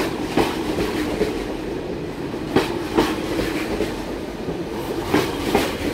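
Double-deck TGV inOui train rolling slowly past over a steady rumble. Its wheels click over a rail joint in pairs of clacks, a pair about every two and a half seconds as each bogie's axles pass.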